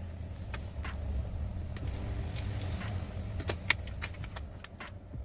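A series of short, sharp plastic clicks and taps as gloved hands handle a Samsung Galaxy A14 5G and press its back panel down, the clips snapping into place; the loudest click comes a little past halfway. A steady low hum runs underneath.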